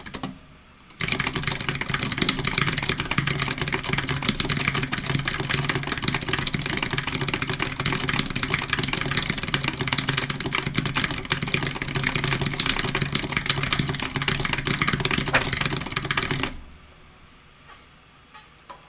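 Fast, continuous typing on a computer keyboard, a dense stream of keystrokes. It starts about a second in and stops a couple of seconds before the end.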